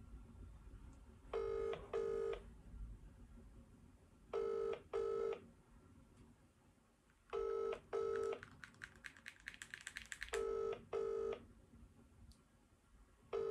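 British telephone ringback tone coming from a smartphone on speakerphone while an outgoing call waits to be answered: a double ring repeating about every three seconds. Around the middle, a quick run of faint clicks.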